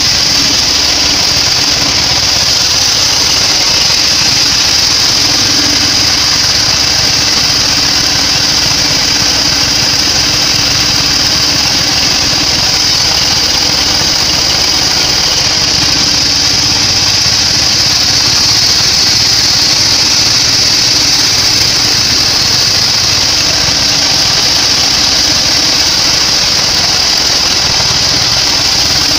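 Sawmill band saw running steadily through weru wood, a constant high-pitched hiss over a low machine hum.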